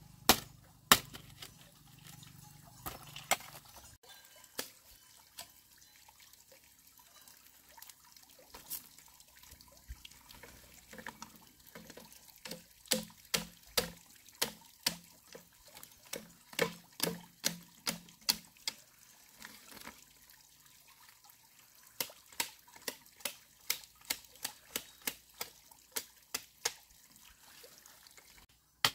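Sharp knocks repeated about two a second, in runs with pauses between, a few with a low hollow ring.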